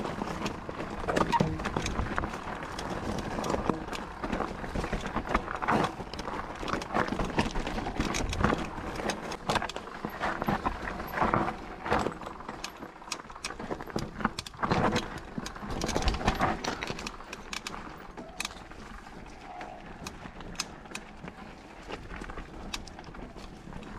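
Mountain bike rattling over a rough trail: irregular clicks and knocks from the chain and frame over steady tyre and wind noise, calming down over the last few seconds.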